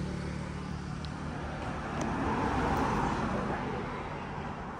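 Road traffic: a vehicle passes, growing louder about two seconds in and fading toward the end, over a steady low hum.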